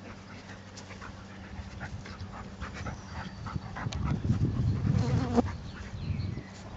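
Two dogs play-fighting in grass: scuffling and dog vocal sounds, louder from about four seconds in as they wrestle.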